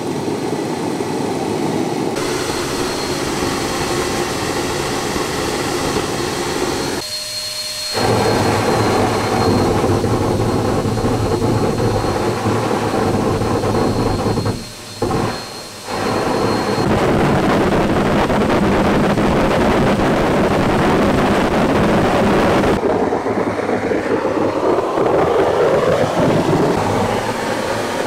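Homemade kerosene-fuelled air-breathing jet engine with a de Laval nozzle, blown by a household vacuum cleaner, burning steadily and running harshly. The noise cuts out briefly twice.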